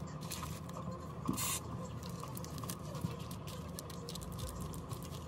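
Handling noise from fingers and a cloth on a Huawei Mate 30 Pro's glass back: scattered light scratches, rubs and small clicks, with a brief wiping hiss about a second and a half in, over a steady low hum.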